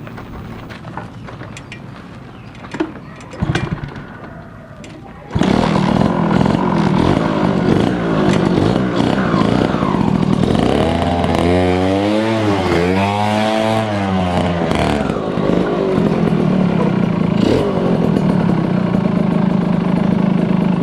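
Motorcycle engine of a Suzuki Crystal/Tornado-based trail bike, a 110 cc two-stroke, being test-run. It comes in suddenly about five seconds in, is revved up and down several times near the middle, then runs steadily until it cuts off at the end.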